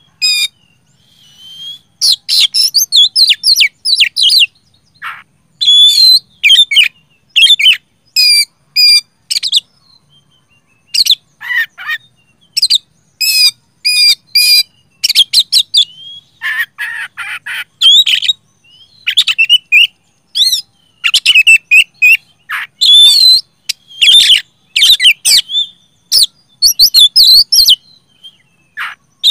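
Oriental magpie-robin in full, loud song: rapid strings of varied whistled and chattering notes, coming in bursts of one to four seconds separated by short pauses, with a few harsher, noisier notes mixed in.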